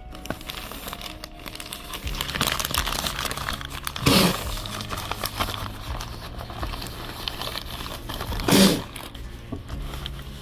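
Plastic wrapping crinkling and rustling as it is handled close to the microphone, with two louder crumples about four and eight and a half seconds in. Soft background music runs underneath.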